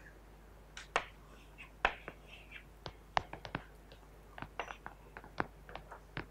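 Chalk tapping and scratching on a chalkboard as numbers and brackets are written: an irregular run of short sharp taps, several a second in places, over a faint steady room hum.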